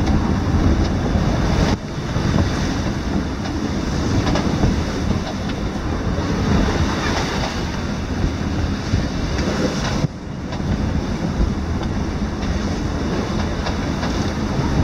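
Wind and rushing sea around a sailing yacht driving through rough water in about 25 knots of wind: a steady, loud rush of noise with deep wind rumble on the microphone. It drops off suddenly for a moment twice.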